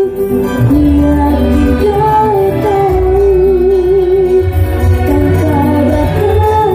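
Live band music: a woman sings a wavering melody into a microphone over keyboard and electric guitar, with low bass notes changing every second or two.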